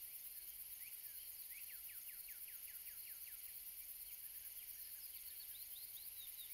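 Faint nature ambience: a bird chirping in quick runs of short falling notes, about seven a second, several times over a steady high hiss.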